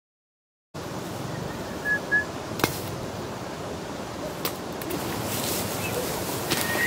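After a moment of dead silence, steady open-air background noise starts, with two short high bird chirps about two seconds in and a single sharp smack shortly after.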